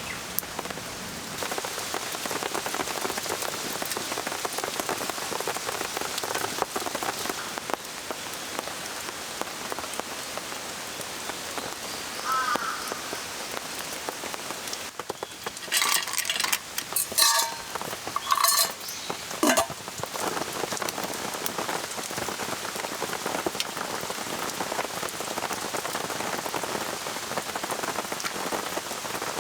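Steady rain falling and pattering. Past the middle comes a cluster of louder clicks and rattles lasting a few seconds, the loudest sounds here.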